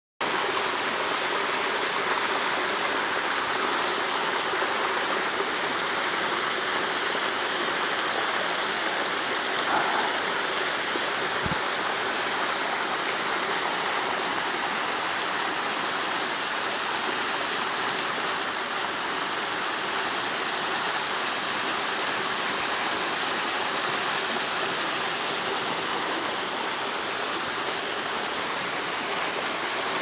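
Small waterfall and burn splashing over rock: a steady rushing of water. High, short chirps repeat every second or so over it.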